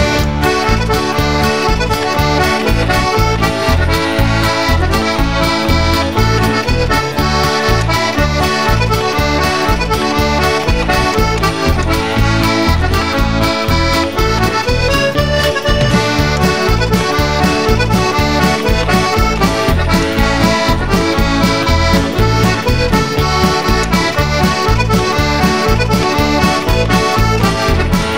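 Upbeat instrumental background music with sustained melody notes over a steady bass beat.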